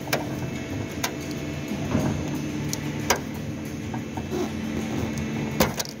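Several light clicks and taps, spread unevenly, over a steady low hum: handling noise while working at the boot latch and its release cable.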